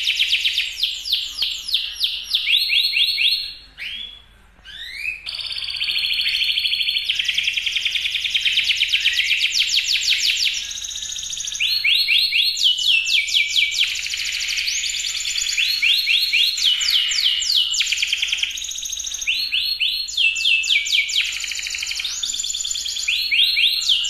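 Domestic canary singing in full voice: long runs of fast trills and rolling phrases, one after another, with a brief pause about four seconds in.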